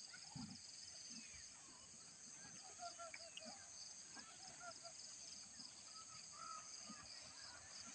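Faint outdoor ambience: a steady high-pitched insect buzz with scattered short bird chirps.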